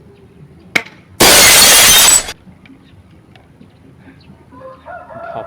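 A sharp airsoft gun shot, then about a second later a thrown plate shattering, a loud breaking crash lasting about a second.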